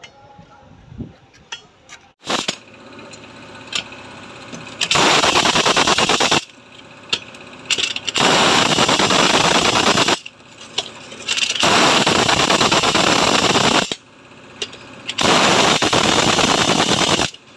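Pneumatic impact wrench hammering on excavator track shoe bolts in four bursts of about one and a half to two seconds each. Short metallic knocks fall in the pauses between bursts.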